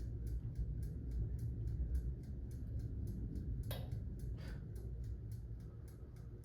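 Toaster oven's mechanical dial timer ticking evenly, about four ticks a second, over a steady low rumble, with two short knocks in the middle.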